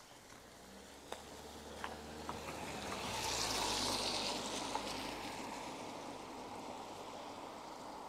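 A car passing close by on a wet road: a low engine hum and the hiss of its tyres on the wet asphalt swell to their loudest about four seconds in, then fade away.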